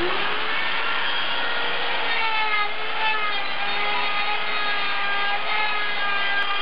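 A die grinder spins up to a high whine and grinds into the port of a 304 stainless-steel turbo manifold flange, port matching it to the engine's exhaust ports. Its pitch sags and recovers as the bit bears on the metal.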